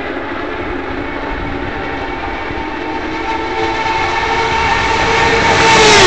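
A pack of 2009 IndyCars, naturally aspirated Honda V8s, running at racing speed as they approach. Their high engine drone gets louder over the last three seconds, and the pitch begins to drop right at the end as the first cars near and pass.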